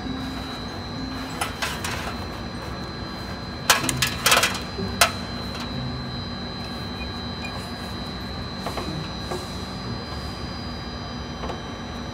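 Hand work on car horn wiring and mounts behind a bumper: a cluster of sharp clicks and rattles about four to five seconds in, with a few lighter ticks, over a steady background hum.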